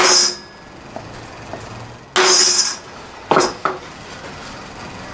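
Centre punch being struck to mark the centre hole for the carburetor intake: two loud metallic strikes that ring for about half a second each, at the start and about two seconds in, then two shorter sharp knocks a little over a second later.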